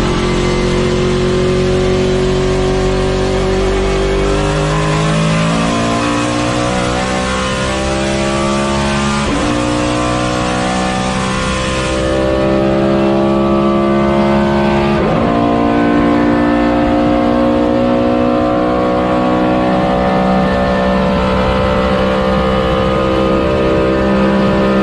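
Race car engine running hard under acceleration, its note climbing gradually in pitch. The note breaks sharply twice, about nine and fifteen seconds in, like gear changes, and then keeps pulling.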